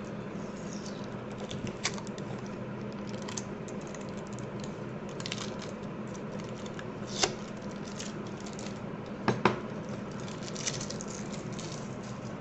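Plastic PBT keycaps being handled: scattered light clicks and taps, with a sharper double click about nine seconds in, over a steady low background hum.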